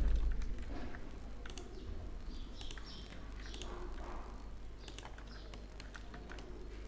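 Scattered clicks of a computer keyboard and mouse, a few at a time with gaps between. A low rumble dies away right at the start, and a few faint bird chirps sound in the background.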